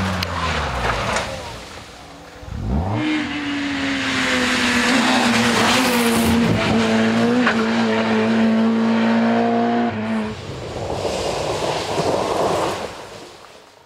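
Rally car engines at full stage pace. One engine drops in pitch at the start. Then an engine revs up sharply and holds high revs for about seven seconds. About ten seconds in it gives way to a hissing tyre and gravel noise that fades out near the end.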